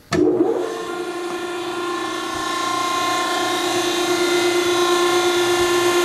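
Cram-A-Lot DB-60-LU vertical baler's 10 hp electric motor and hydraulic pump starting up at the push of the start button: a sudden start, then a steady whine over a hum that holds its pitch and grows slightly louder.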